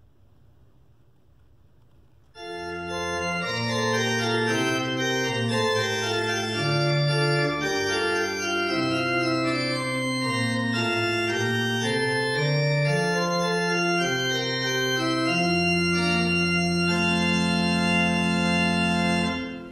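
Church pipe organ playing a hymn introduction in sustained chords. It enters about two seconds in and closes on a long held chord near the end.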